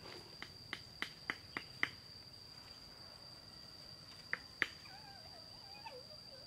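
Sharp knocks of hand tools striking bamboo: six quick strikes about three a second, a pause, then two more a little after four seconds in. A steady high-pitched drone runs underneath.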